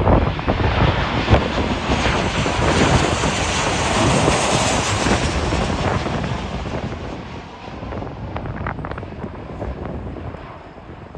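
Jet airliner's engines passing on landing approach, a noise that swells to a peak midway and then fades away, with strong gusty wind buffeting the microphone.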